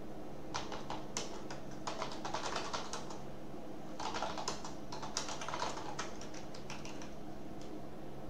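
Typing on a computer keyboard: short runs of quick keystrokes with brief pauses between them.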